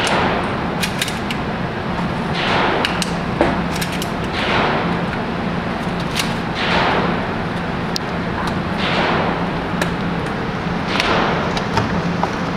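Shotgun slugs being handled and loaded into a UTS-15 12-gauge pump shotgun: scattered sharp clicks and rattles of shells and metal parts. Under them runs a steady low hum, with a dull whoosh about every two seconds.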